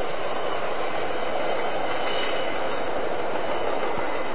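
Double-stack container train rolling past close by: a steady noise of wheels on rail and rattling cars.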